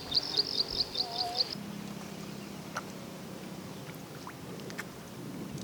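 A bird calling in a fast, even series of short high chirps, about five a second, that stops about a second and a half in. After that a faint low steady hum remains, with a few scattered ticks.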